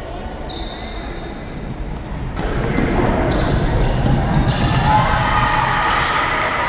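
Gym sounds of a high school basketball game: ball bouncing and sneaker squeaks on the hardwood court. About two and a half seconds in, many voices from spectators and players rise into shouting and cheering that carries on as the play goes to the basket.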